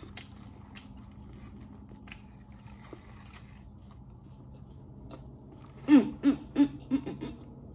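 A person eating: quiet chewing and faint mouth clicks, then about six seconds in a quick string of short, loud appreciative vocal sounds whose pitch rises and falls, like pleased hums over the food.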